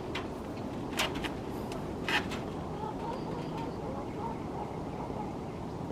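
Hens clucking softly, with a few sharp clicks about one and two seconds in.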